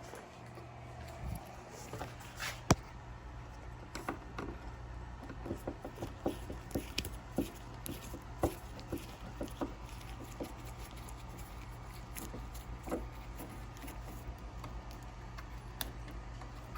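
Scattered light clicks and taps of hand work on car door trim and fittings, with one sharp knock about three seconds in, over a steady low hum.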